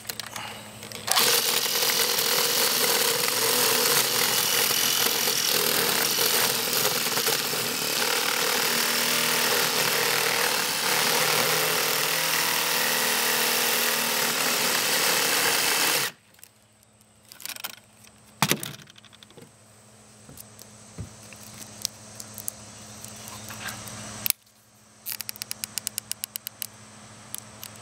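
Electric jigsaw cutting through the filled plastic tube of an Eco Aqualizer, starting about a second in and running steadily until it stops suddenly about sixteen seconds in. Scattered clicks and knocks of the pieces being handled follow, and a quick run of ticks comes near the end.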